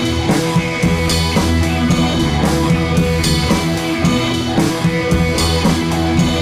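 Background rock music with guitar and drum kit, a steady beat.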